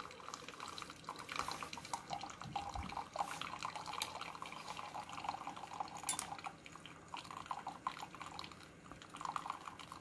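Thin stream of brewed coffee trickling and splashing faintly from a Keurig K-Cafe's spout into a glass mug, on the slower Strong brew cycle.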